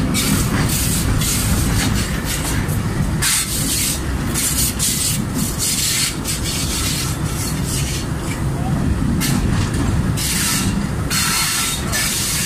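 M8 diesel locomotive running over yard tracks and points, with a steady low rumble of engine and wheels and short bursts of hiss every second or so.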